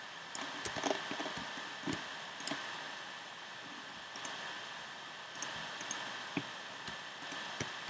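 Irregular, scattered clicks and taps of a computer keyboard and mouse being worked, over a steady hiss.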